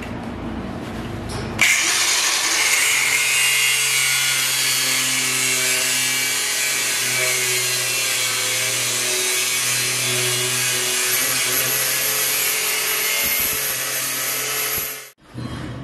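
A DeWalt angle grinder with a cutoff wheel cuts through the mini jeep's metal front frame with a loud, steady grinding screech. It starts about a second and a half in and stops abruptly near the end.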